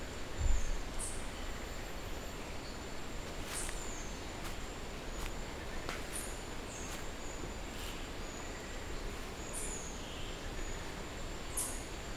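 Outdoor ambience: a steady high insect drone, with short high bird chirps that fall in pitch, coming every second or two. There is one low thump about half a second in.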